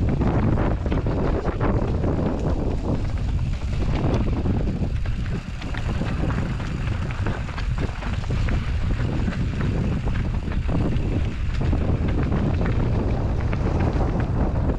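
Rocky Mountain Slayer Carbon 50 mountain bike riding a trail: tyres rolling over the ground and a steady run of small clattering knocks from the bike, under heavy wind rush on the microphone.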